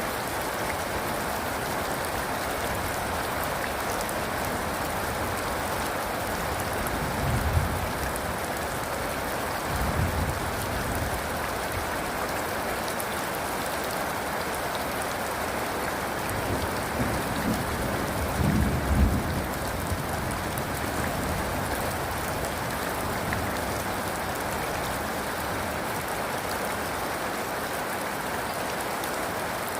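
Steady heavy rain falling, an even hiss of drops, with a few low rumbles of thunder rising through it: one short rumble about a quarter of the way in, another about a third in, and a longer, louder one a little past halfway.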